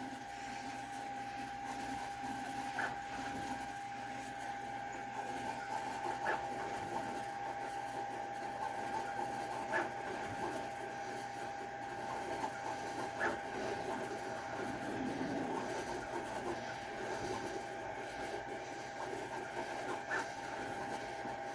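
Hex key unscrewing a bolt from a 3D printer's frame: faint metal scraping with a small click about every three and a half seconds as the key is reset, over a steady faint hum.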